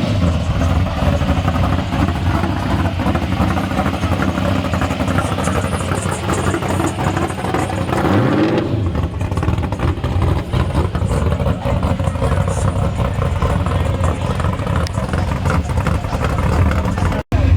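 Vehicle engine running loud, with a rev that rises and falls in pitch about eight seconds in.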